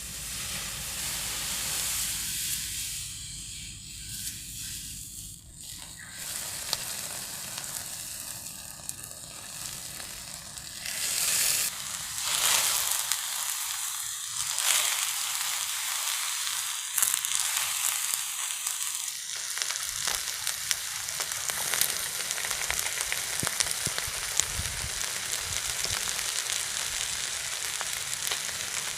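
Raw fish sizzling in hot oil on an iron plate: a steady high hiss with scattered crackling pops, swelling louder about eleven seconds in.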